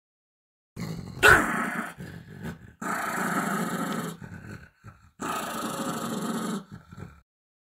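Angry dog growling: a sharp, loud outburst about a second in, then two long throaty growls of about a second and a half each, with a short gap between them.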